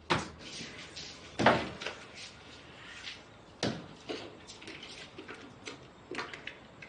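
Three sharp knocks spaced a second or two apart, then lighter ticks and clatter in a small tiled room, as someone comes in through a door, steps out of her shoes and walks across the floor.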